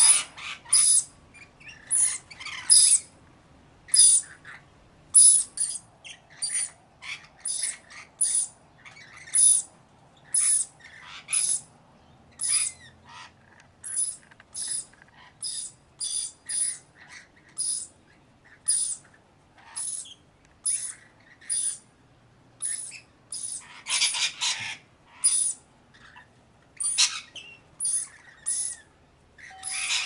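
Parrot calls: short, shrill, high-pitched screeches repeated one to two times a second, with a louder, denser burst of calls about 24 seconds in.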